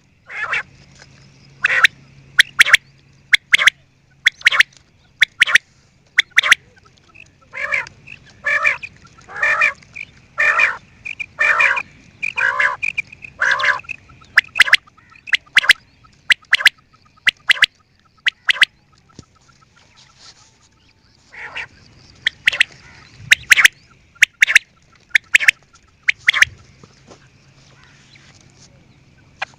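Quail calling over and over in short, sharp notes, about one or two a second, with a pause about two-thirds of the way through, over a faint steady low hum.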